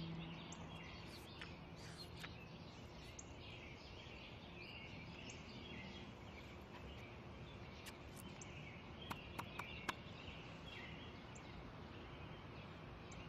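Outdoor park ambience: small birds chirping here and there over a steady low hiss, with a few faint sharp clicks about nine to ten seconds in.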